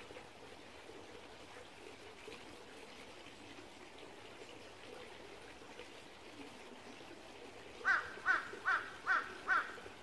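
Small stream trickling steadily over rocks and leaves. Near the end a bird gives five loud, short, harsh calls in quick succession, about two and a half a second.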